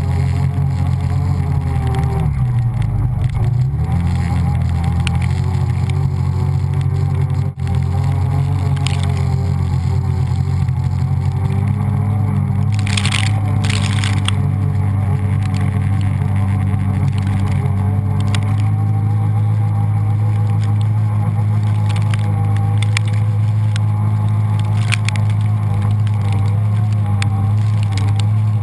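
A 4x4's engine running steadily as it drives through snow; the engine note dips briefly a few seconds in, then picks up again. Snow spatters sharply against the vehicle about halfway through.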